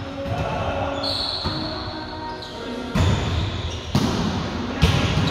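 Volleyball being struck during a rally, echoing in a large gym: three sharp smacks about a second apart in the second half.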